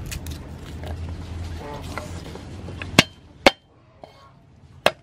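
Cleaver chopping garlic cloves on a thick wooden chopping board: three sharp knocks, two about half a second apart around three seconds in and a third near the end. Before the knocks there is only a low steady hum with faint handling sounds.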